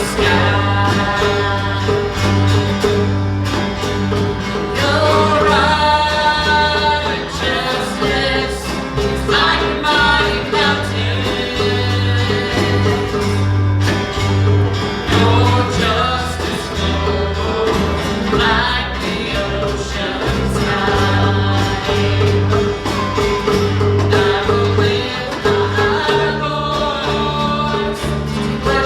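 Live gospel worship music: a church band with a steady bass line and guitar accompanies singing.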